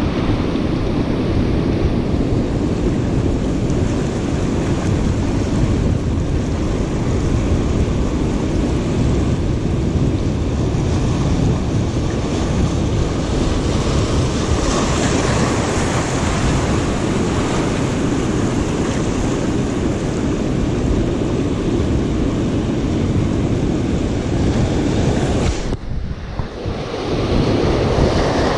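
Surf breaking and washing over shoreline rocks, with wind buffeting the microphone. The sound is a steady, loud wash that dips briefly about 26 seconds in.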